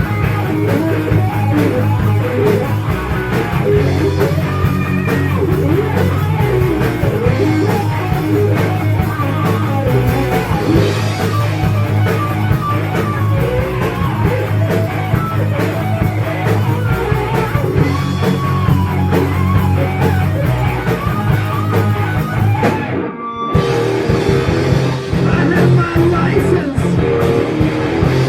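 Heavy metal band playing: distorted electric guitars over bass and drum kit. About three-quarters of the way through, the whole band cuts out for a split second, then crashes back in.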